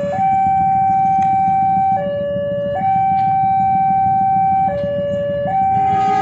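Railway level-crossing warning alarm: an electronic two-tone signal that alternates a higher tone held about two seconds with a lower tone held under a second, repeating steadily. It sounds while a train approaches the crossing.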